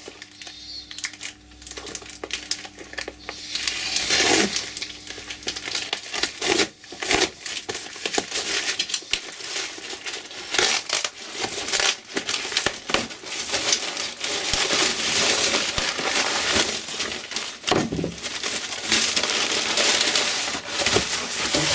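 A parcel being opened by hand: packaging crumpling and rustling over and over, with tearing and small knocks.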